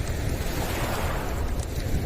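Lake waves washing against the shore, swelling about halfway through, over a steady low rumble.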